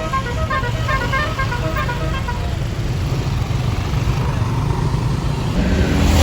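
Tour bus's roof-mounted basuri telolet horn playing a quick melody of short stepped notes, which stops about two seconds in. The bus engine runs underneath and grows louder near the end.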